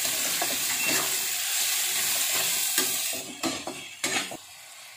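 Sliced carrots and capsicum sizzling in hot oil in a kadhai while a metal spatula stirs and scrapes them against the pan. The sizzle drops away about three seconds in, leaving a few separate spatula scrapes.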